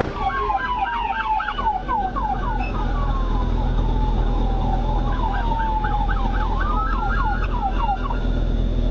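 Police car sirens: a slow wail falling and then rising in pitch, overlapped by a fast yelp of about four to five quick sweeps a second that drops out for a few seconds midway. A steady low rumble runs underneath.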